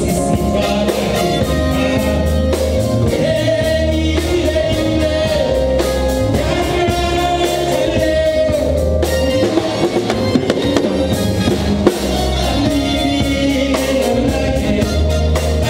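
A church choir singing an upbeat gospel song, backed by a drum kit and a steady bass line.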